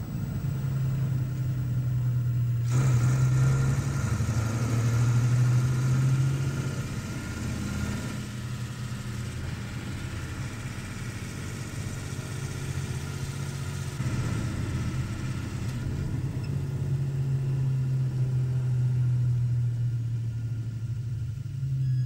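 A heavy lorry's engine running at low revs with a steady low drone that swells louder twice. A hissing layer sits over the middle part.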